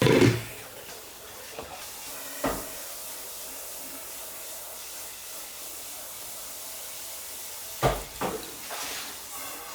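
Steady sizzling hiss of food frying in hot oil, broken by a sharp knock at the start, another about two and a half seconds in, and a few clatters of utensils near the end.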